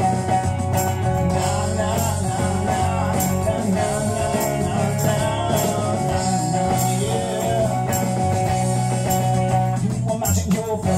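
Live band playing a bluesy rock tune: electric bass and hand percussion under a held chord, with a wavering melody line over it. About ten seconds in the held chord drops out as the phrase changes.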